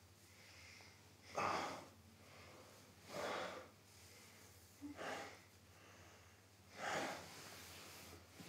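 A person breathing heavily: four loud, rough breaths about two seconds apart, over a low steady hum.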